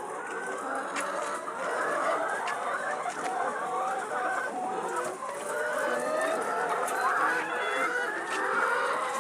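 A flock of laying hens clucking and calling together, a dense continuous chatter of many overlapping birds, with a few light clicks and knocks.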